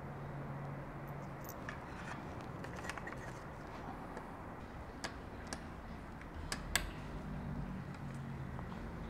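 Scattered small metallic clicks and taps as a motorcycle exhaust clamp and its bracket are handled and lined up against the silencer by hand, the two sharpest close together about two-thirds of the way in, over a steady low hum.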